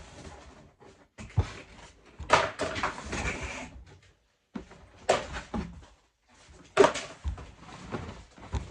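Cardboard toy box and its packing being handled while it is unboxed: several sharp knocks, each followed by rustling, with short pauses between.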